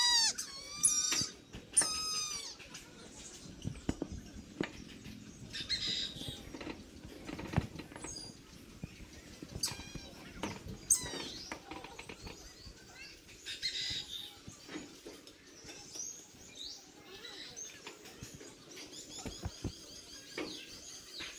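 Brahminy kite calling: a few thin mewing calls, each rising then falling in pitch, in the first two seconds. Then it is quieter, with scattered faint chirps and light clicks.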